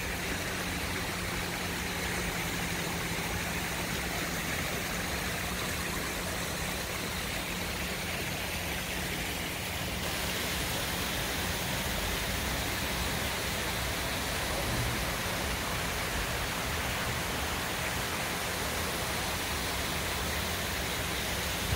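Steady rush of running water from a garden stream or small waterfall, unchanging throughout, with a faint steady low hum under it.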